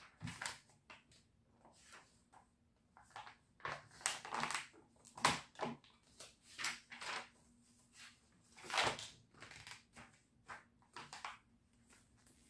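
Pages of a paper Lego instruction booklet being flipped through by hand: a string of short, irregular swishes and rustles, a dozen or so, with the loudest around the middle.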